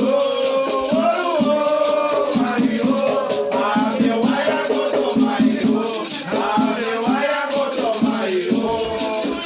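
Group singing of Batuque ritual chants, with shakers rattling in a quick, steady rhythm.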